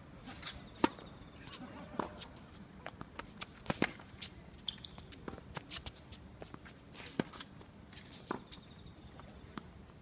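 A tennis rally on a hard court: the ball struck by racket strings, with the loudest crack, the serve, a little under a second in, followed by scattered knocks of racket hits, ball bounces and quick footsteps on the court surface.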